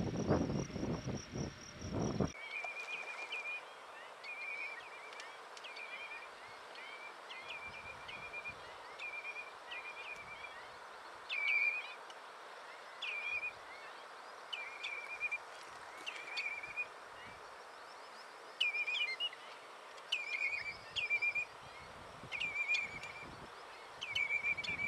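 For the first two seconds, a steady high insect trill with wind rumbling on the microphone. After an abrupt cut, a bird calls again and again, about once a second: each call a sharp rising note that falls into a short buzzy trill, over a steady hiss.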